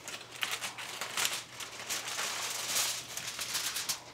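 Aluminium foil crinkling as it is peeled back off a hot oven tray, in a long run of uneven crackles.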